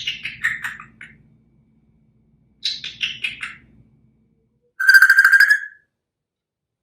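African grey parrot whistling. Twice it gives a quick run of chirps that steps down in pitch, and about five seconds in it gives a loud, steady, rapidly pulsing whistle lasting about a second.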